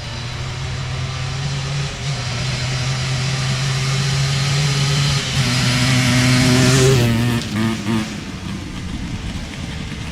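Yamaha Blaster big-bore two-stroke ATV engine running at a steady throttle as it passes by, growing louder to a peak about seven seconds in, where its pitch drops away, then fading.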